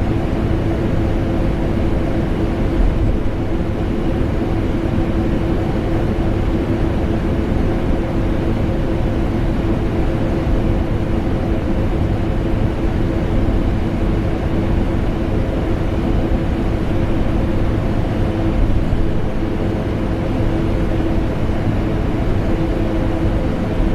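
Vacuum cleaner running continuously, blended with air conditioner noise: an even rushing hum with a steady mid-pitched whine that does not change.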